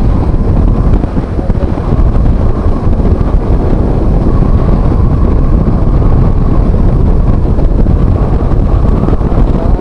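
Steady, loud wind rush on the microphone of a rider travelling at expressway speed on a Bajaj Dominar 400 motorcycle, with the motorcycle's running noise mixed underneath.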